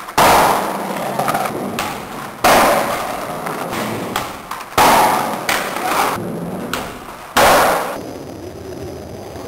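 Skateboard landing with a sharp bang four times, about every two and a half seconds, each bang followed by the noise of the wheels rolling away and fading.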